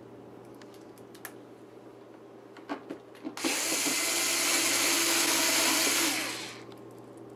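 Black & Decker cordless screwdriver driving a screw into the plastic dishwasher door panel: its low-torque, slow-spinning motor whirs steadily for about three seconds, starting about halfway through, then stops. Before that there are a few light clicks as the screw and bit are handled.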